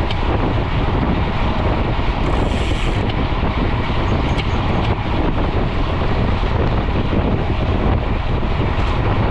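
Wind rushing over a GoPro's microphone on a mountain bike ridden at speed: a steady, loud buffeting rumble, with a brief extra hiss about two seconds in.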